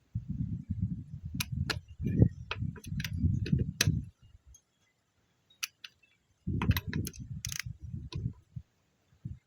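Hand tools clicking and knocking during strut work: rapid ticking in two spells, the first about four seconds long and the second about two, with a short pause between them.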